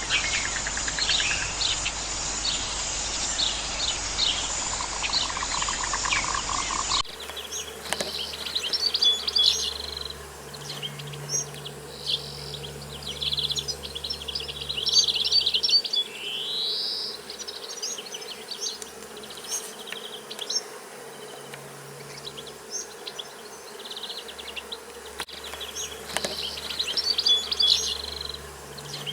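Many small birds chirping and trilling, with a low insect-like buzz that comes and goes underneath. About seven seconds in, the ambience changes abruptly to a different recording.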